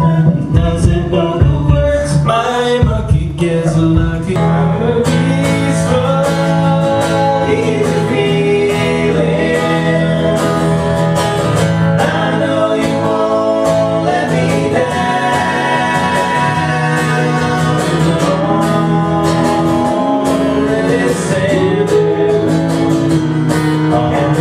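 Live music: strummed guitar with voices singing a song.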